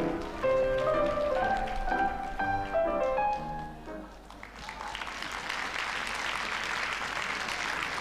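Music of distinct pitched notes that ends just before halfway, followed by an audience applauding steadily.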